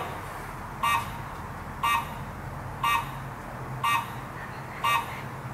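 An electronic beep repeating about once a second, each a short mid-pitched tone, over a steady low hum.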